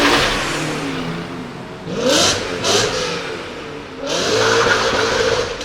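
BMW M5 engine revved through its exhaust: a loud rev falling away at the start, two quick blips about two seconds in, then a longer rev that climbs and holds high before dropping near the end.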